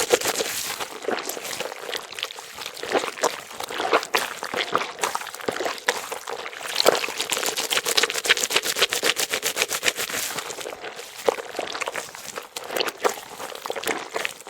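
Water running from a bathroom sink faucet and splashing into the porcelain basin, a dense, crackly patter that swells and eases unevenly.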